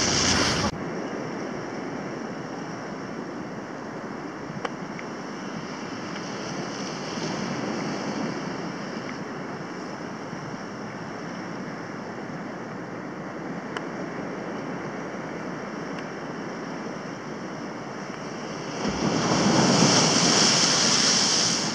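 Sea surf washing steadily against a rock jetty, with a louder wave breaking and crashing on the rocks near the end.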